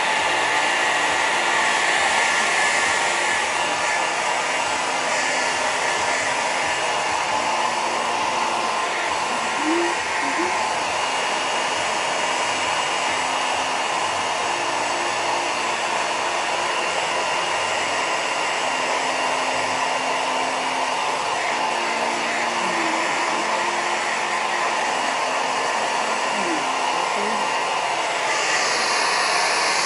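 Hair dryer blowing steadily while drying a dog's fur, with a brief change in the airflow near the end.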